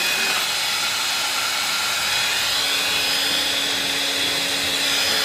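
Steady, loud hiss of a motor-driven household appliance running, with a faint high whine; a low hum joins about two seconds in.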